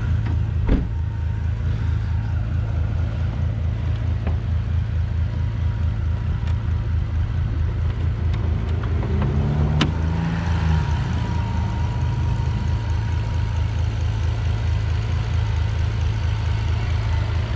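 The 2009 Bentley Continental GTC's twin-turbo 6.0-litre W12 idling steadily with a low pulsing rumble. About ten seconds in there is a sharp click as the bonnet latch is released, after which a thin steady whine sits above the idle.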